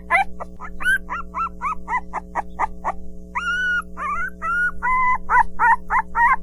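Pinscher puppy crying loudly: a rapid run of short, high, bending cries, about four a second, with two longer drawn-out cries in the middle.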